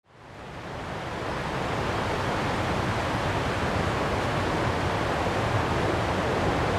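River water rushing over a shallow weir and rapids: a steady, even hiss that fades in over the first second, with low wind rumble on the microphone.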